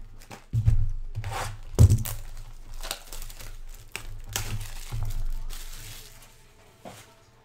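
Plastic wrapping on a trading-card hobby box crinkling and tearing as the box is handled. A few dull thuds, loudest in the first two seconds, come from boxes knocking on the table.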